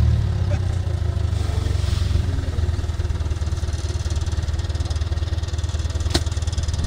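Backhoe loader's diesel engine idling, a steady low hum. A single sharp click about six seconds in.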